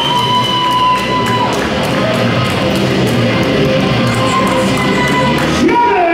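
Loud rock music led by electric guitar, with long held notes that bend in pitch.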